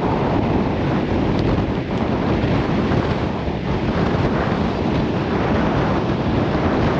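Strong wind buffeting the camera's microphone: a loud, steady rushing noise.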